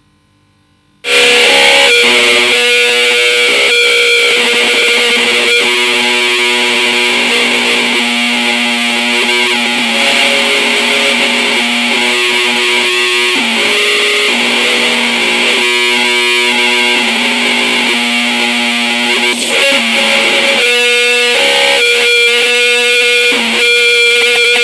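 Loud, harsh, heavily distorted alarm tones that cut in suddenly about a second in after near silence. Several held pitches shift every few seconds over a pulsing beat, sounding much like an overdriven electric guitar.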